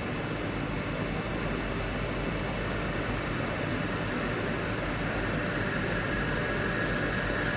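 Steady hiss of hydraulic oil being bled slowly out of the pressurized accumulator circuit through a drain valve, as the system pressure falls.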